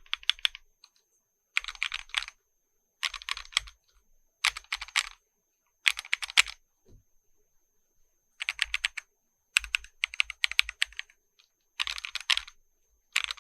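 Custom-built Gammakay LK67 mechanical keyboard with XDA-profile keycaps being typed on. The keys go in short, quick runs of keystrokes, about half a second each, with brief pauses between them and one longer pause about halfway through.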